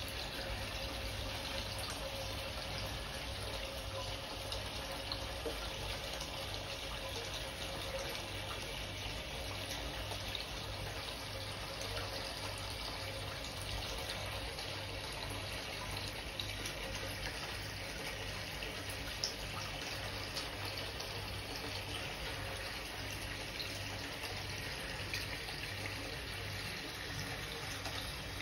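Steady sound of running water in a koi spawning pool, an even, unbroken rush with fine small ticks, like water flowing or splashing in continuously.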